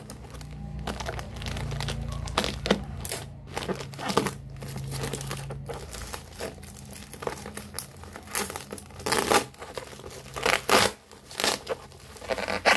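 Black plastic bubble wrap being crinkled and pulled open by hand: a run of irregular crackles, loudest about three quarters of the way through and at the end. The wrap is hard to get open.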